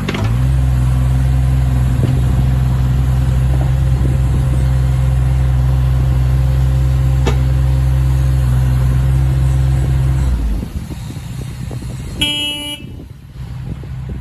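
JCB 8008 micro excavator's diesel engine running at a steady speed, then shutting off about ten seconds in. Shortly after, a short horn-like beep sounds for about half a second.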